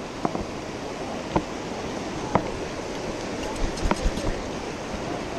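River current rushing over a shallow rocky riffle, a steady rushing noise. Sharp knocks come about once a second, with a quick cluster of them about four seconds in.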